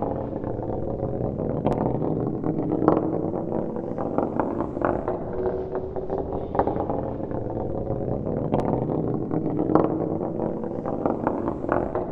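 Metal ball rolling: a continuous rumble with a faint ringing hum, broken by occasional sharp clicks.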